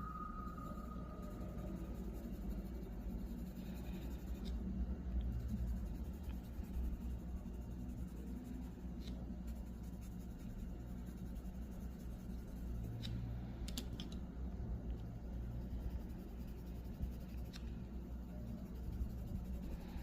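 Colored pencil scratching faintly on paper in coloring strokes, with a few light clicks.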